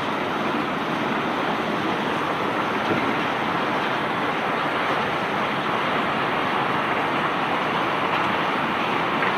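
Crushed rock pouring and sliding out of a barge's hold in a steady, even rush.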